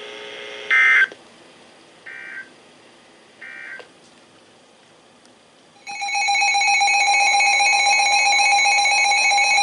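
Three short bursts of Emergency Alert System (SAME) digital data tones, about a second apart, the pattern of an end-of-message code closing the alert before. About six seconds in, a loud steady warbling attention tone starts and holds, signalling the next alert.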